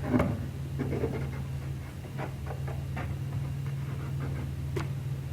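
Faint scratching and small clicks of a glue bottle being worked over cardboard, spreading glue around the top and corners of a box, over a steady low hum.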